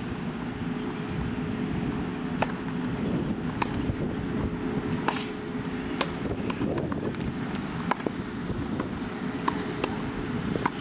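Tennis balls struck by rackets in a rally on a grass court: a string of sharp pops, roughly one every second or so, over a steady low background rumble.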